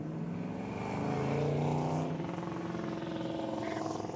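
Car engine running and being revved, rising in pitch and loudness about a second in, then settling back.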